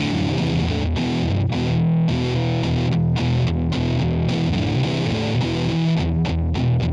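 Rock music with a distorted electric guitar and a steady beat.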